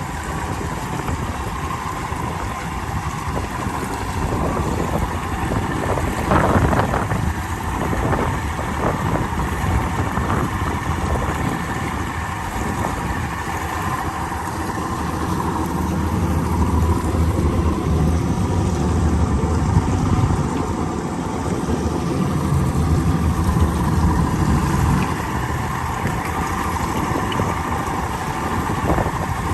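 Small boat's motor running steadily under way, with wind rushing over the microphone and water noise.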